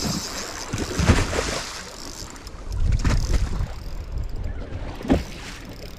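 Choppy water slapping against a boat's hull in irregular swells, with wind buffeting the microphone.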